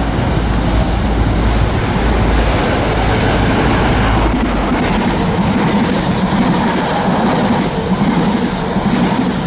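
A passing train, its wheels running loud and steady over the rails, with a low hum coming in about halfway through.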